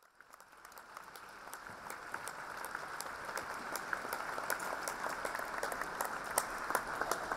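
Audience applauding, the clapping growing louder over the first couple of seconds and then holding steady.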